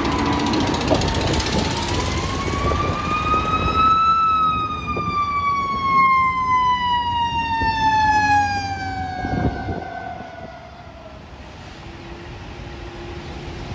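Fire rescue truck's siren responding through traffic: one rising sweep, then a long, slow fall in pitch as it winds down and fades, over road traffic noise.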